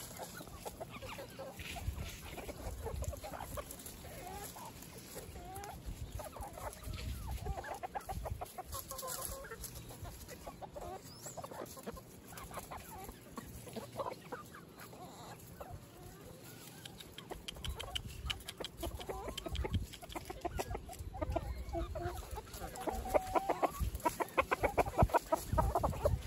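A flock of chickens, mostly hens, clucking as they feed on scraps, with short calls scattered throughout. The clucking thickens into quick runs and grows louder over the last several seconds.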